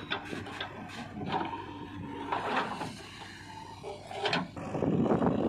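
JCB 3DX backhoe loader at work: its diesel engine hums steadily under clunks and rattles of the bucket and loose soil, with a louder stretch of scraping near the end as the bucket digs into the earth.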